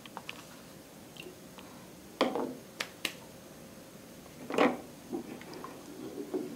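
Kitchen handling noises from a saucepan and utensils: a few scattered knocks and sharp clicks, the loudest about two seconds in and again about four and a half seconds in. Near the end a wooden spatula stirs the water in the pot.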